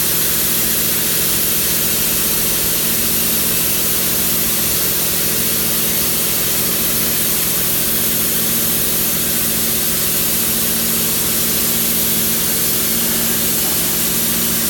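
CNC plasma cutter at work: a steady, loud hiss of the plasma arc and its air stream over a steady hum, unbroken throughout.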